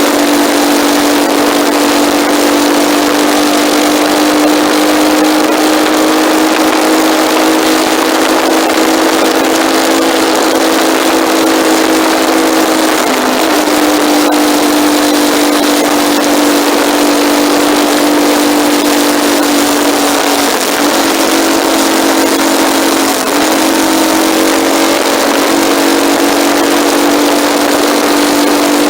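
Motorcycle engine running at a steady cruise with a strong, even drone under constant wind rush, picked up by a phone on the handlebars. The drone dips briefly about halfway through and twice more later on.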